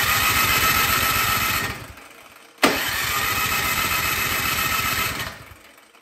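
Troy-Bilt Storm 2665 snowblower engine turned over by its electric starter in two cranking bursts, a fast even chug with a steady starter whine, stopping about halfway through and again near the end. It cranks but never fires, even with starting fluid sprayed into the cylinder.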